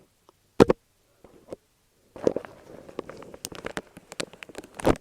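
Close-miked ASMR trigger sounds: a single loud tap or thump about half a second in, then from about two seconds in a dense, fast crackling and clicking.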